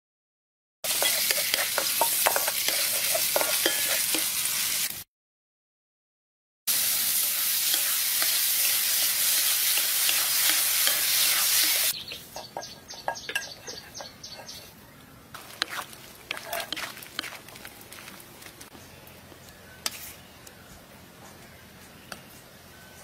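Meat and onion sizzling loudly in a hot wok while being stir-fried, with a ladle scraping and clicking against the pan, in two stretches split by a short silent gap. About halfway through it drops to quieter scattered scrapes and clicks.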